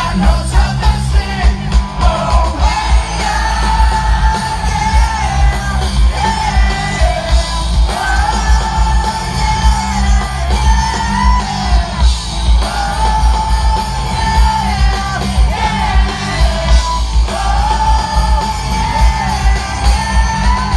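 Ska-punk band playing live through a festival PA, heard from within the crowd: a sung melody in long held phrases over a heavy, pulsing bass and drum beat.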